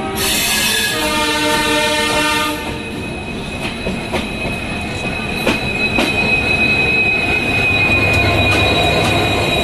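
A multi-tone locomotive horn sounds for about two seconds near the start. Then a WDP4 diesel locomotive passes close by on the adjacent track, bringing running rumble, clicks of wheels over rail joints and a steady high wheel squeal.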